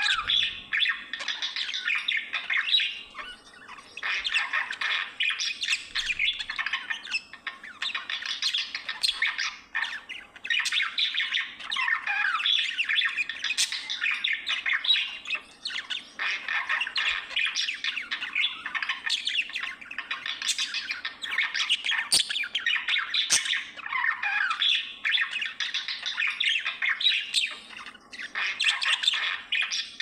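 Budgerigar warbling and chattering: a dense run of squawks and chirps in phrases a few seconds long, broken by short pauses.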